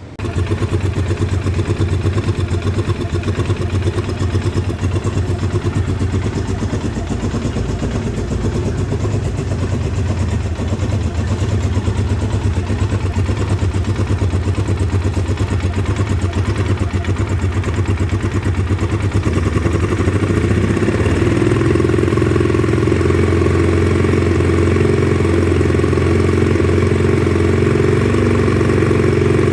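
The 2009 Polaris Sportsman 800 ATV's twin-cylinder fuel-injected engine running and getting a little louder and steadier about two-thirds of the way through. It is running rough after months of sitting, which the owner puts down to gummed-up fuel injectors.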